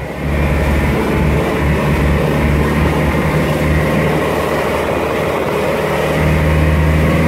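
Motorboat engine running steadily under way, a low hum over the rush of wind and water, growing a little louder about six seconds in.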